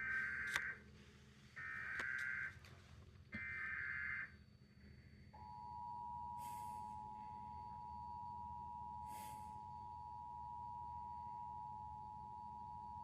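Emergency Alert System tones: three short, screechy digital data bursts (the SAME header), then about five seconds in the steady two-tone EAS attention signal (853 and 960 Hz sounded together), which signals that an emergency alert broadcast is about to follow. Two faint brief hisses pass over the tone.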